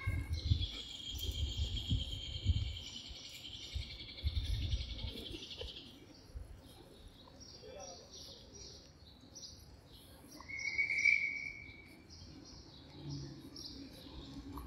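Outdoor birdsong and insect sound among park trees: a long, high, steady insect buzz for the first six seconds, then short repeated bird chirps, and a single clear whistled note about ten seconds in, the loudest sound. Low rumbling runs underneath.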